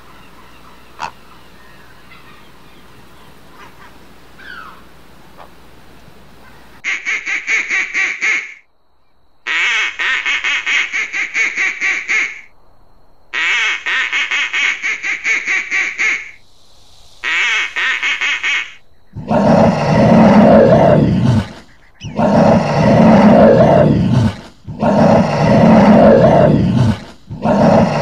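Faint background with a single click about a second in. Then a plumed whistling duck's rapid, shrill twittering whistles come in four bursts of one to three seconds each. From about two-thirds in, loud, rough animal calls follow in bouts of about two seconds; they are given as Bennett's tree-kangaroo.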